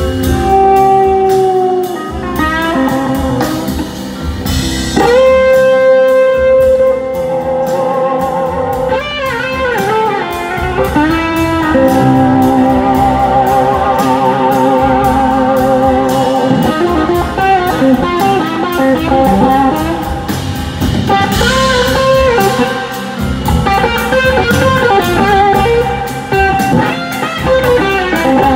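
Live blues-rock band performing, led by an electric guitar playing long held notes that waver and slide in pitch, over drums and the full band.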